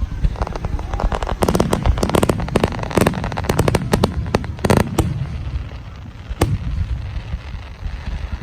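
Aerial fireworks bursting: rapid volleys of sharp bangs and crackling over deep booms, densest through the first half. After that the bursts thin out, with one lone sharp crack.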